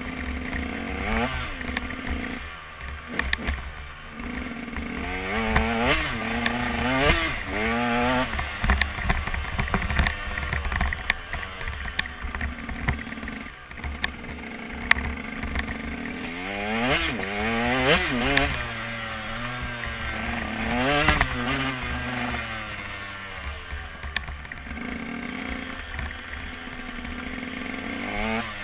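KTM 125 EXC Six Days two-stroke single-cylinder engine being ridden hard, revving up and falling back again and again as the throttle opens and closes through the gears. A constant low wind rumble sits on the helmet microphone.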